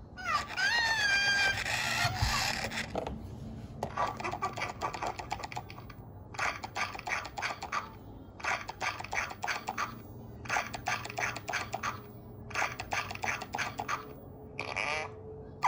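Owleez electronic toy owl making its sounds: a warbling, pitch-bending cry near the start, then short bursts of rapid clicky chattering, one about every two seconds.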